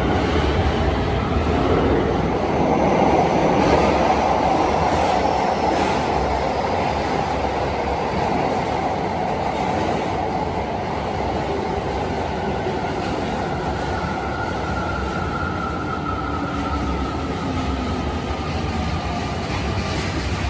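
Keio 9000-series electric commuter train pulling into an underground station platform and rolling past, with a steady rumble of wheels on rail echoing off the tunnel walls. A whining tone falls away in the first second, and another swells and fades in the second half as the train slows.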